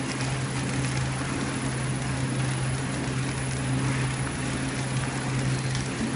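Horizontal flow-pack wrapping machine running steadily, a constant low hum under an even mechanical whir.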